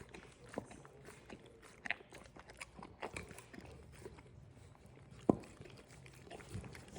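Dog chewing and biting raw food: a run of irregular wet clicks and crunches, with one sharper click a little over five seconds in.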